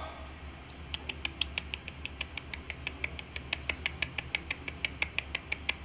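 Parrot clicking rapidly and evenly, about six clicks a second, starting about a second in, after a brief pitched call at the very start.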